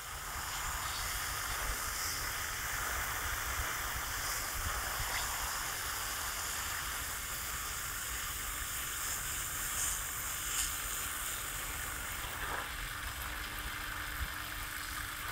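Oscillating lawn sprinkler spraying water across a straw-mulched garden bed: a steady hiss of spray and droplets falling on the straw.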